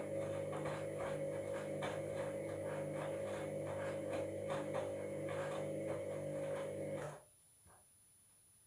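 Washing machine motor turning the drum at the start of a wash: a steady motor hum and whine with irregular rattling and grinding over it, cutting off suddenly about seven seconds in as the drum stops. The owner takes the grinding for a sign of worn drum bearings.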